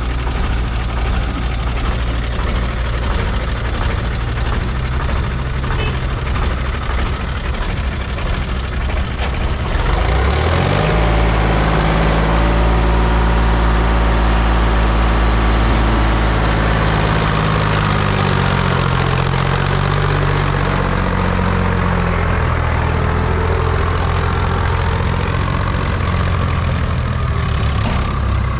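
Heavy diesel machinery engine idling steadily, then revving up about ten seconds in and running harder, its pitch rising and falling as the load changes.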